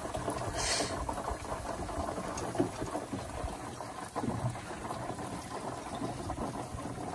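Water boiling and sizzling inside a hot, blown Ford 351M V8 engine, a steady hiss with a few faint clicks. It is the sound of water poured into the engine hitting the very hot oil left in it.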